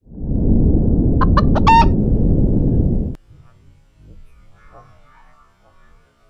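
A rooster crowing, a few short notes running into one longer held note, over a loud low rumble. Both cut off abruptly about three seconds in, leaving only faint muffled underwater sound.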